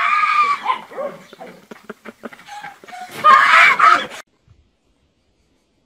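A boy screams loudly and hoarsely for about a second near the end, and the scream cuts off into silence. Before it there is a short high cry and some scattered clicks.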